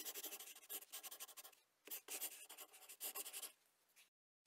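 Faint scratchy sound of rapid writing strokes on paper, in two runs of about a second and a half with a short gap between, trailing off near the end: the sketching sound effect of a hand-drawn logo animation.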